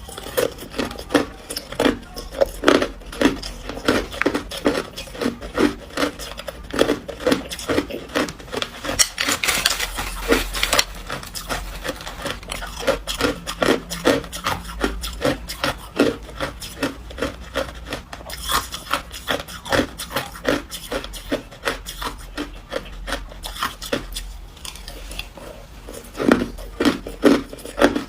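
Ice being chewed: a steady run of crisp crunches, a few a second, with short pauses between bites.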